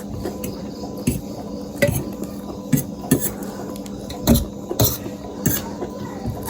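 Metal cutlery clinking and scraping against a bowl of noodles while someone eats, with about eight or nine irregular knocks over a steady low hum.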